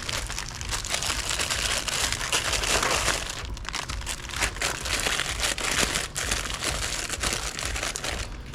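Plastic snack wrappers crinkling and rustling continuously as packaged snacks are handled.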